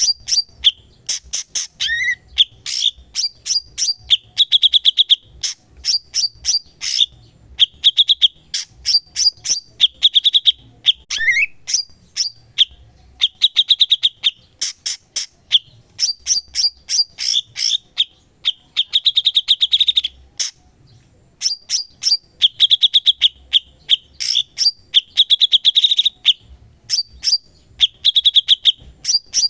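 A cucak cungkok singing continuously in full voice: fast runs of sharp chipping notes and high trills, with a few short rising notes and brief pauses between phrases.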